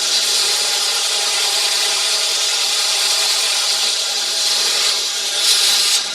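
An Ameribrade belt grinder running, with a steady motor hum under the hiss of the abrasive belt as a workpiece edge is pressed against it to clean it up. The grinding gets louder about five and a half seconds in, then eases off just before the end.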